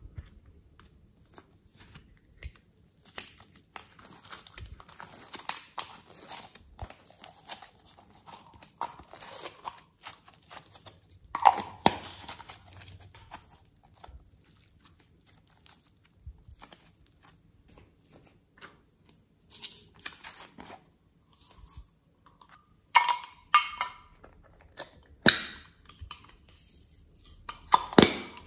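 Hands squeezing and kneading soft clay, giving many small clicks and crackles. Near the end, small plastic cases snap and click open, with several sharper clicks.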